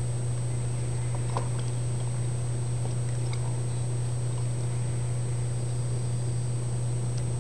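Steady low hum with a thin high whine above it, and a few faint clicks about a second and a half and three seconds in.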